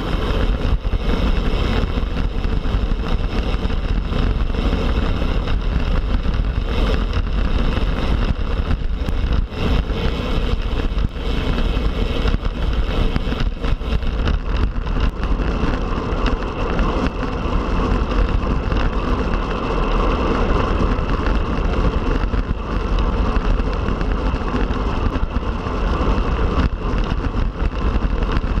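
Wind buffeting the microphone of a road bike ridden at speed: a steady rushing noise with a heavy low rumble.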